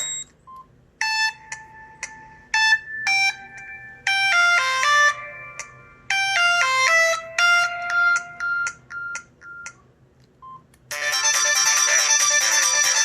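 Samsung SGH-T729 Blast ringtones played one after another. A short beep is followed by a simple electronic melody of separate bright beeping notes lasting about nine seconds. Another short beep comes next, then a denser, busier ringtone starts near the end.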